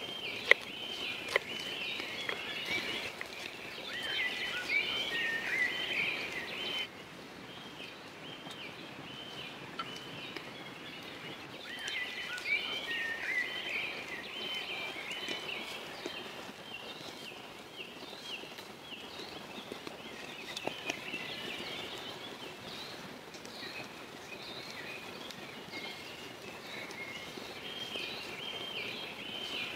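Woodland birds singing, a busy chorus of short chirping phrases that goes on throughout. In the first second and a half a knife taps sharply twice on a wooden cutting board as an onion is sliced.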